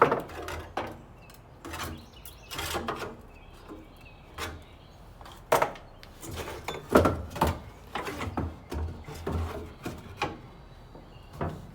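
Irregular knocks, clunks and rubbing as a Humvee fender panel is pushed, bent and handled into place. A dozen or so sharp knocks come at uneven intervals, the strongest about seven seconds in.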